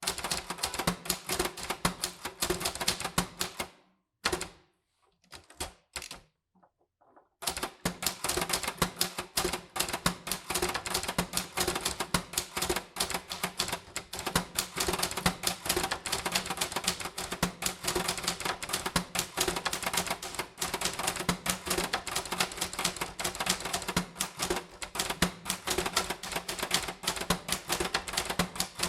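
Typewriter being typed on in fast runs of key strikes. About four seconds in, the typing stops for roughly three seconds with only a few stray clicks, then resumes and runs on without a break.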